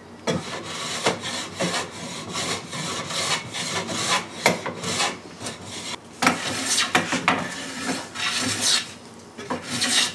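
Hand bench plane being pushed along a softwood board, a series of rasping cutting strokes with short pauses between them. It is set for a fine cut, taking thin shavings to smooth the surface.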